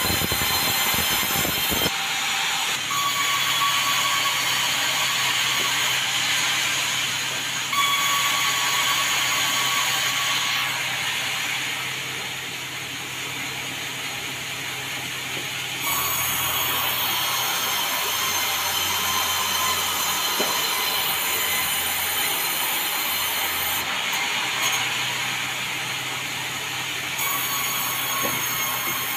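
Sawmill saw running and cutting meranti timber into boards, a steady mechanical whine and rumble. Its pitch and level change abruptly several times.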